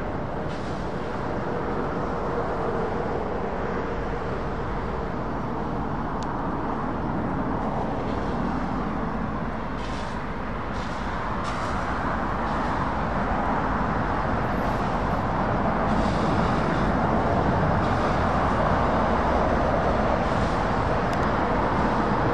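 Steady vehicle noise, slowly growing louder in the second half.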